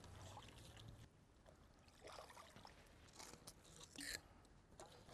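Faint water sounds of a pool-cleaner hose being fed into the pool: light splashing and trickling, with one brief sharper splash about four seconds in.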